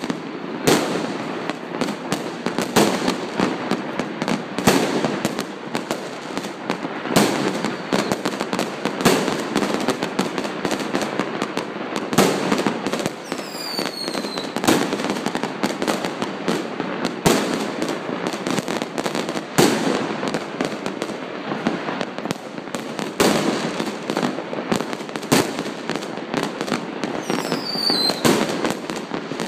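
Fireworks going off without pause: a dense run of bangs and crackling, with two high whistles falling in pitch, one midway and one near the end.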